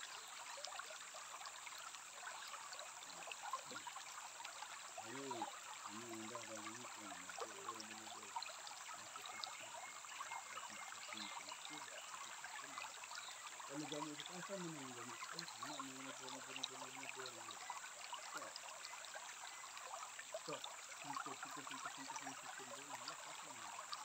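Shallow stream running over pebbles and rocks, a steady trickling rush. Faint voices come through briefly three times, with a steady high-pitched tone underneath.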